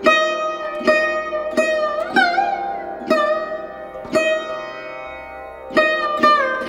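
Background music: a plucked string instrument plays a slow line of single notes, each ringing out and fading, several of them sliding up or down in pitch.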